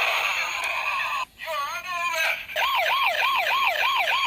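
Battery-powered toy UMP submachine gun's electronic sound effect played through its small speaker. A loud buzzing burst stops after about a second. After a short break and a few wobbling tones, a rapid siren-like warble rises and falls about four times a second.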